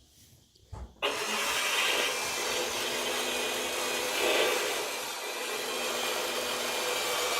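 A short thump, then steady vehicle noise from inside a 1998 Jeep Wrangler TJ that cuts in suddenly about a second in: engine and road noise at a steady drone.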